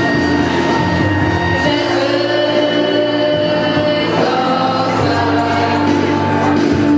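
A group of girls singing together into microphones, holding long notes that change pitch every second or so.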